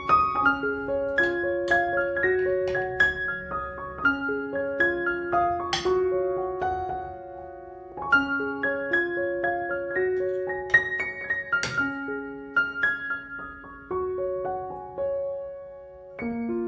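Background piano music: a slow melody of held notes in gentle phrases, with a brief dip between phrases about halfway through.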